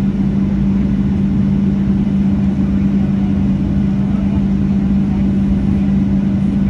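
Steady engine and airflow noise inside the cabin of a Boeing 737-700 with CFM56-7B turbofans, carrying an even low hum.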